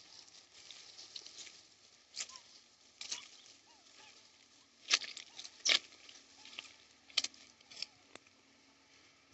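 Irregular sharp rustles and clicks, about six in all, the loudest near the middle, with a few faint short squeaks between them.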